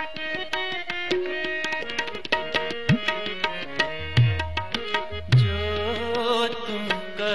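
Instrumental interlude of Sikh shabad kirtan: a harmonium playing the melody over tabla, with deep, pitch-bending strokes on the bass drum.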